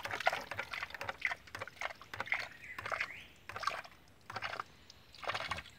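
Water spurting and splashing in irregular pulses from the waste valve of a homemade hydraulic ram pump. The pulses thin out with gaps in the second half as the pump falters on a low water supply.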